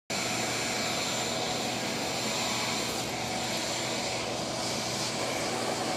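Vacuum cleaner motor running steadily, a constant rushing noise with a high whine, while vacuuming up rocks.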